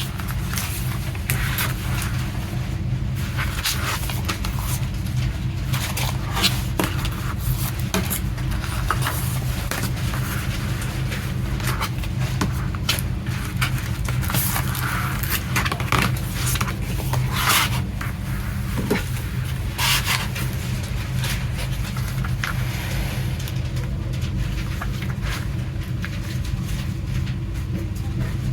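Handling of a CD's cardboard sleeve packaging and inserts: irregular scrapes, rustles and light clicks of card and paper being slid and turned, over a steady low hum.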